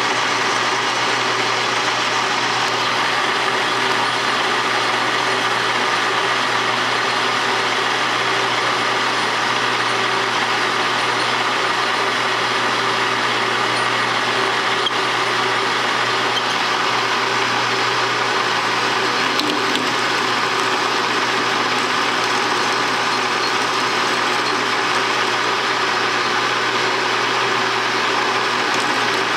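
Metal lathe running with a steady mechanical drone and hum during a facing cut, the tool fed by hand across the end of the workpiece.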